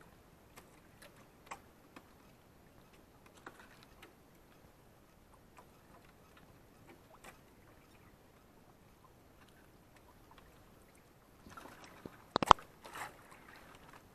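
Nylon longline being hauled in hand over hand and piled into the hull of a small outrigger boat: faint scattered clicks and rubs. Near the end, a short flurry of louder handling noise with one sharp knock.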